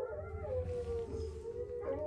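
A dog howling: one long, slightly wavering note.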